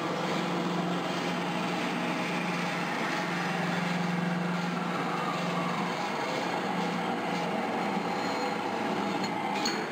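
W.F. Wells W-9 twin-post horizontal bandsaw running: a steady mechanical hum and blade noise, with a tone that slides down in pitch over a few seconds midway through.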